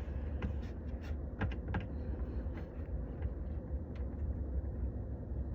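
Scattered small clicks and taps of a wrench being worked at an oil drain plug under a car, over a steady low rumble.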